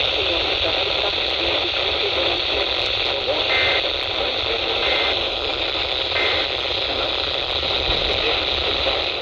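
NOAA Weather Radio reception heavy with static hiss over a low hum. In the middle come three short, faint data bursts: the SAME alert header, here announcing a Special Marine Warning.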